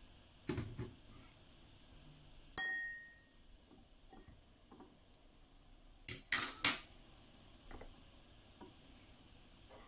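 A fork clinking against a textured glass bowl while broccoli florets are moved around in it. A dull knock comes about half a second in, then one sharp, ringing clink of glass about two and a half seconds in, and a quick run of clicks about six seconds in.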